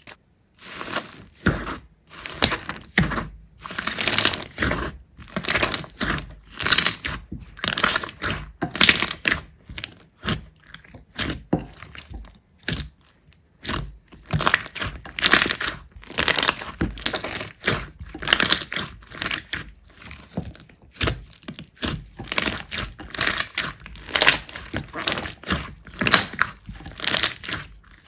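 Slime being squeezed, pressed and stretched by hand, giving repeated crackly, crinkling squishes about one or two a second.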